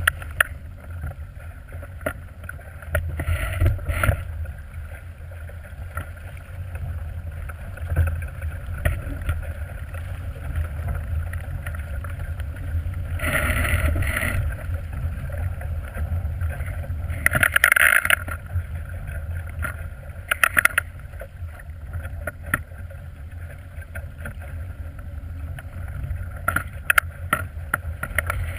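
Wind buffeting the microphone of a camera mounted on a small plywood sailboat, over water rushing and slapping along the hull as the boat sails fast through chop. Several louder splashes of water stand out from the steady rumble.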